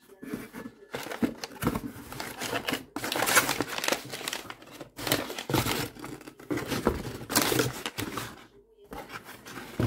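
Crumpled brown kraft packing paper crinkling and rustling as it is handled and pulled aside in a cardboard box, in several spells of about a second each.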